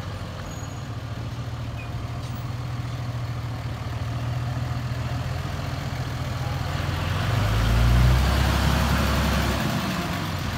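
Dodge Ram 3500 dually pickup's engine running steadily as the truck rolls slowly past at close range. The sound grows louder and deeper to a peak about eight seconds in, then eases off.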